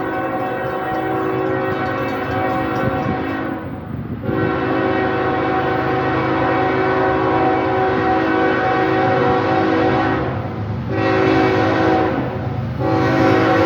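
Norfolk Southern locomotive #8109's air horn blowing one long, loud chord, broken briefly about four seconds in and twice more near the end. The low rumble of the passing train runs underneath.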